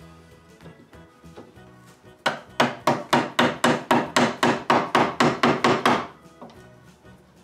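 An orange mallet rapidly striking a tool held against a wooden table leg, about fifteen quick, even blows at roughly four a second, starting a couple of seconds in and stopping near six seconds. It is knocking at a leg that is screwed, glued and stapled in place.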